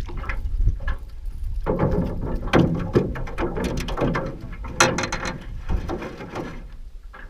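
Fishing reel cranked in with a run of ratcheting clicks, then knocks and rattles as a small trout is landed and handled in an aluminum boat, over a steady wind rumble on the microphone.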